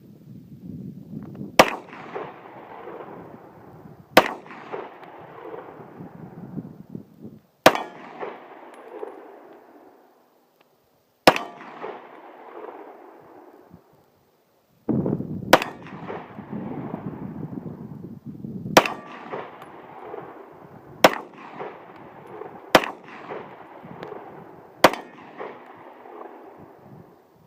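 Glock 17 9mm pistol fired nine times in slow, unevenly spaced single shots, about two to four seconds apart.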